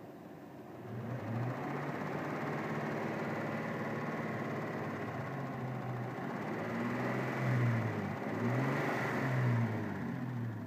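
Mitsubishi 6G72 V6 engine running, picking up about a second in, then revved up and back down three or so times near the end. It is being run to show a knock in the engine.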